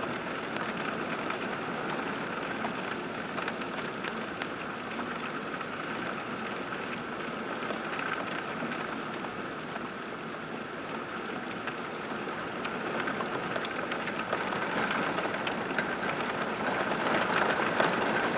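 Heavy rain pouring down in a steady downpour, with faint scattered drop ticks. It grows a little louder near the end.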